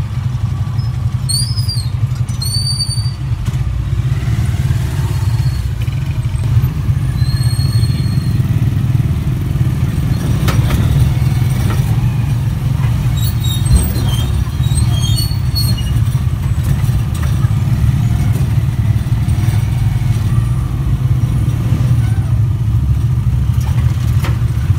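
Motorcycle tricycle's engine running steadily, heard from inside the sidecar as a loud, constant low drone with road rumble. A few brief high squeals come in the first few seconds.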